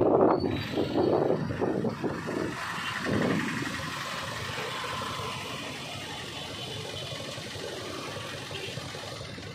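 Motorbike riding through city traffic: uneven rumble of engine and passing air for the first three seconds or so as it slows, then a steady, quieter engine idle and traffic hum once it stops at a traffic signal.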